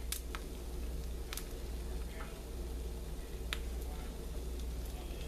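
Egg omelet frying in a small cast iron skillet: a few scattered pops and crackles over a steady low hum.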